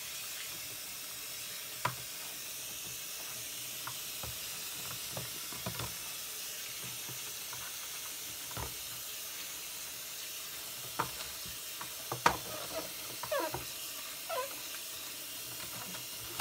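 Tap water running steadily into a sink while a plastic washing-machine detergent drawer is rinsed by hand, with scattered knocks of the drawer against the sink, the loudest about twelve seconds in, and a few short squeaks near the end.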